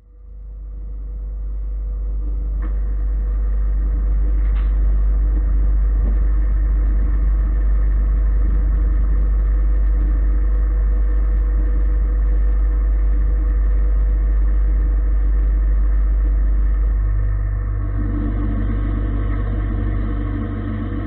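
Gildemeister CTX 400S 2 CNC lathe running, its spindle turning a metal bar under the cutting tool: a steady low hum with a faint whine over it, rising in over the first few seconds. About seventeen seconds in the hum steps up in pitch and gets slightly quieter.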